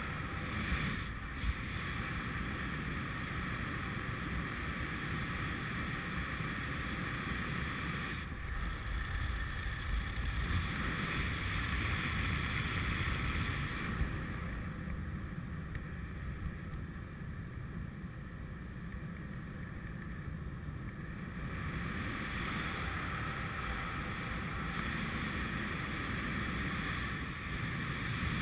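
Steady wind rush and buffeting on an action camera's microphone in paraglider flight. It eases a little past the middle and then picks up again.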